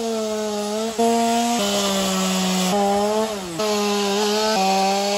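Two-stroke chainsaw running at high revs while cutting through a fallen conifer trunk. The engine pitch drops and recovers several times as the chain bites into the wood.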